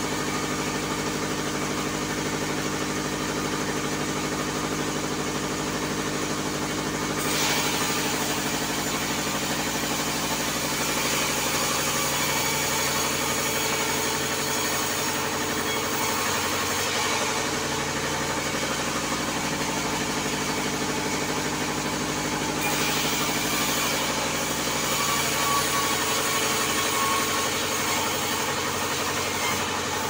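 Band sawmill running steadily with a constant machine hum. A hiss, the blade cutting into a log, joins about seven seconds in, eases off partway through and comes back near the end.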